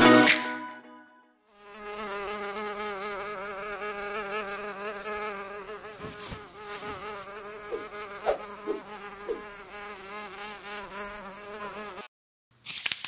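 A music track ends just after the start. Then a small drone's propellers buzz with a slightly wavering pitch for about ten seconds, with a few brief blips in the middle, and the buzz cuts off suddenly near the end.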